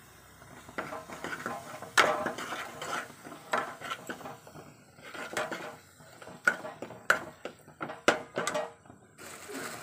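A steel ladle scraping and knocking against a kadai while stirring and frying a thick masala paste, with irregular scrapes and taps.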